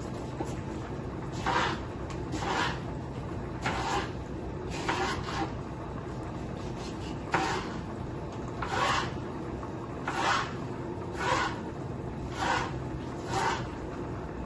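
Kitchen knife slicing bell peppers lengthwise into strips on a cutting board, one short crisp cut about every second, over a steady low hum.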